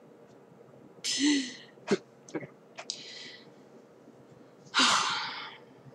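A person's breathy huffs and gasps: three noisy bursts of breath, the last and loudest near the end, with a few short mouth clicks between them.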